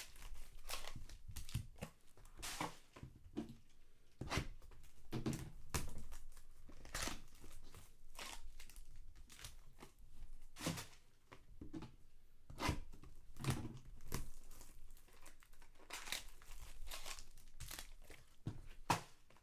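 Trading card wrapping being torn open and crinkled: irregular crackles and short rips as the packs are opened.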